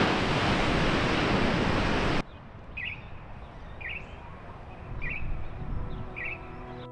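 A loud, steady rush of wind and surf noise cuts off abruptly about two seconds in. Then, over a quieter background, a bird gives four short chirps about a second apart.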